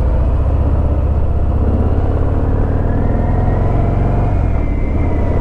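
Harley-Davidson Fat Bob's Milwaukee-Eight 107 V-twin engine running steadily as the motorcycle rides along, with a faint whine that rises in pitch midway.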